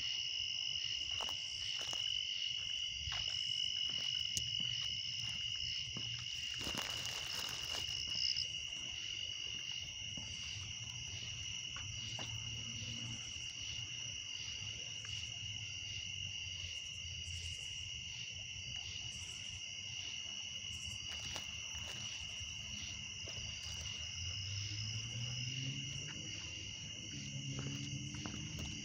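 Steady chorus of night insects, a continuous high trill at two pitches. Scattered small clicks and a brief rustle about seven seconds in sound over it.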